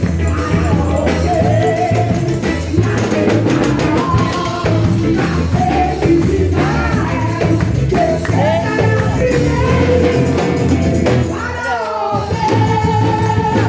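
Gospel song sung with a pandeiro playing the rhythm, over a backing track with bass. The music thins out briefly near the end before the full beat returns.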